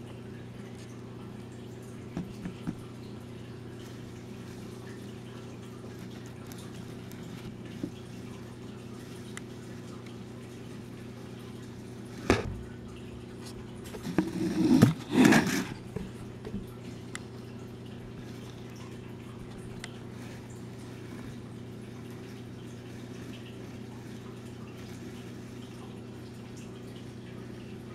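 A steady low hum with a few faint clicks, a sharp click about twelve seconds in, and a short cluster of louder knocks and rattles a couple of seconds later.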